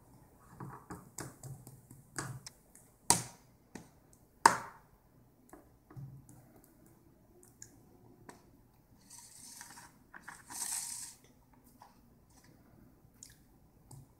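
Plastic fork tapping and scraping in an aluminium foil pie tin, a run of irregular clicks with two sharp louder ones about three and four and a half seconds in, and a scratchy scrape a little past the middle.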